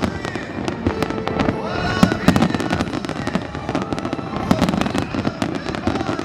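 Fireworks display: a dense stream of bangs and crackles, one after another without a break.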